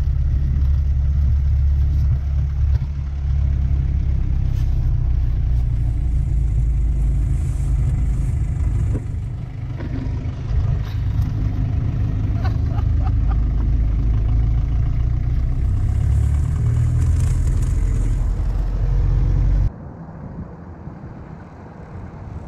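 Austin FX3/FL1 taxi's four-cylinder diesel engine running while driving, a loud steady low rumble heard inside the cab with light rattles and clicks, dipping briefly about nine seconds in. Near the end it cuts to a much quieter sound from outside, with wind on the microphone and the taxi further off.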